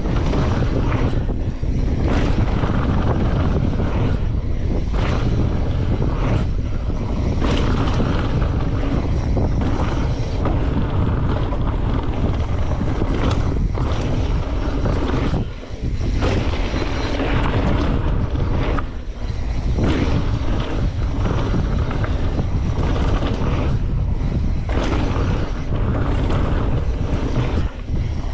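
Wind rushing over the microphone and mountain bike tyres rolling fast down dirt singletrack, with frequent knocks and rattles from the bike over bumps. The rush drops away briefly a few times.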